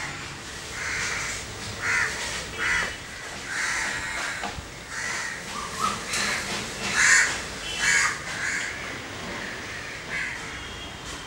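Crows cawing repeatedly, about ten calls at uneven spacing.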